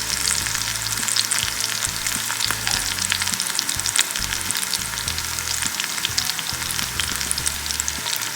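Masala-coated barramundi pieces shallow-frying in oil in a pan, sizzling steadily with many small crackling pops.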